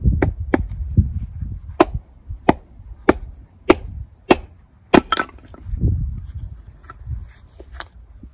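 Stihl forestry hatchet with a 600 g head splitting a small piece of wood on a chopping block: a run of about nine sharp wooden knocks, about every half second in the middle stretch, as the hatchet bitten into the wood is struck down on the block. Just after five seconds the wood cracks apart, and a few light clatters of split pieces follow near the end.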